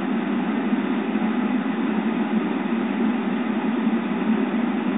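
Steady rushing noise inside a car cabin: the climate-control fan blowing air through the dashboard vents, switched to cold.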